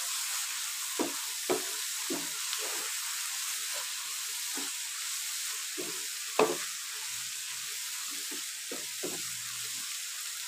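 Tomato masala with green chillies and ground spices sizzling in a frying pan while a wooden spatula stirs it, with irregular scrapes and knocks of the spatula against the pan; the loudest knock comes about six seconds in.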